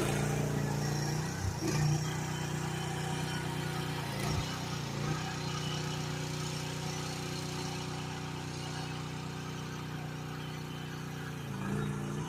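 GroundHog KH14G mini excavator's engine running steadily, with two brief dips in pitch in the first few seconds.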